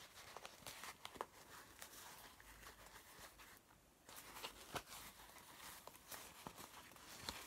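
Faint rustling and scattered light clicks of hands handling a small baby shoe and working it onto a doll's foot.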